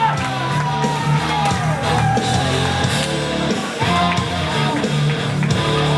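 A wrestler's entrance music, a rock song with sung vocals over a steady bass line, played loudly through an arena's sound system.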